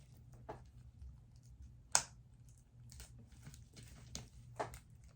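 Fingers picking, scratching and tapping at the packaging of a Blu-ray box set while trying to open it: scattered faint clicks and scrapes, the sharpest about two seconds in and a few more near the end.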